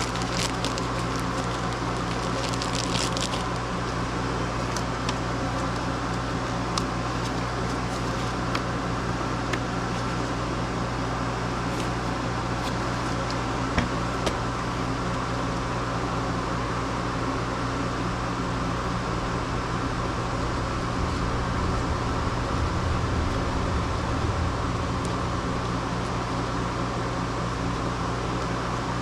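A steady mechanical hum, with a few light clicks and ticks in the first fifteen seconds.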